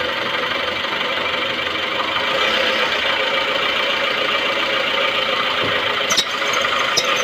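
Maruti Suzuki Baleno engine idling steadily with the steering turned to full lock, which loads the belt-driven power-steering pump. Two short clicks come near the end.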